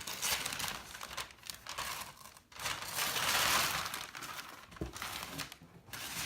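Wrapping paper crinkling and tearing as a present is unwrapped, in uneven rustles with a longer, louder stretch about three seconds in.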